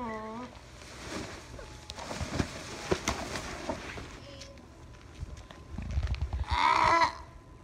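Rustling and scraping with scattered clicks and a few soft thumps, with a pitched, animal-like cry trailing off at the start and a louder one of about half a second near the end.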